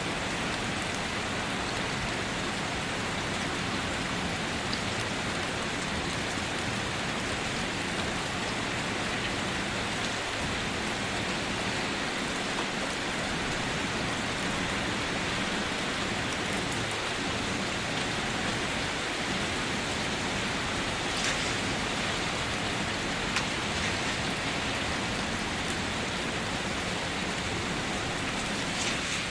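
Steady rain falling and pattering on a surface, with the odd louder drop.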